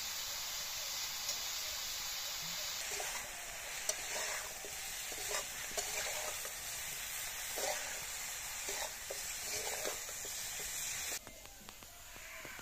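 Broccoli sizzling in hot oil in a metal kadai over a wood fire, with a metal spatula scraping and stirring it roughly once a second from about three seconds in. The sizzle cuts off abruptly near the end, leaving quieter outdoor ambience.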